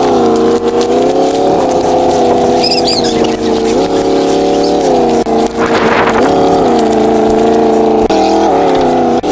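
Pickup truck engine running at high revs, its pitch holding steady and then stepping up or down to a new held note several times, as if tuned into a melody. A brief rough burst about six seconds in.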